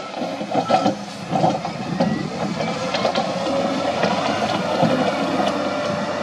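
Diesel engine of an SDLG wheel loader running as it pushes dirt with its bucket, uneven at first, then louder and steady from about two seconds in.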